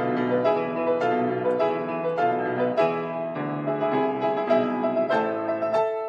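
Solo grand piano playing a pasodoble: full chords struck in a steady beat, a little under two a second.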